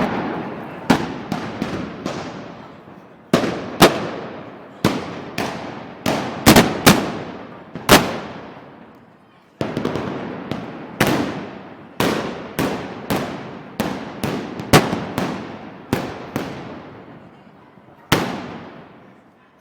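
Loud gunpowder bangs going off one after another at irregular intervals, some in quick clusters, each echoing away. There is a short lull a little past the middle.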